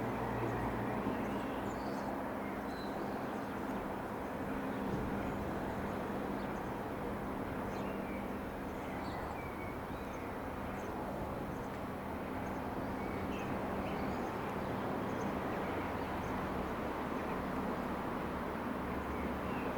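Steady distant drone of a light aircraft's piston engine, the Ikarus C-42's, easing off about halfway through, with birds chirping over it.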